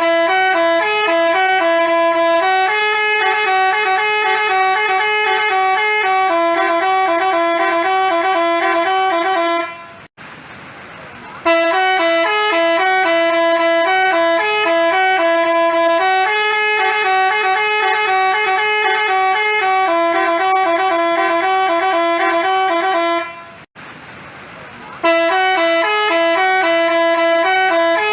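Telolet basuri multi-tone bus horn playing a melody in quick stepping notes. The tune breaks off twice for about a second and a half, leaving a softer hiss, then starts again.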